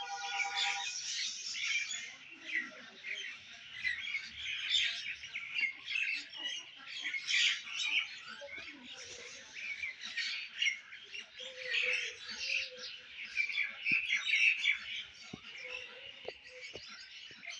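A dense dawn chorus of many small songbirds chirping and singing at once, their rapid high calls overlapping.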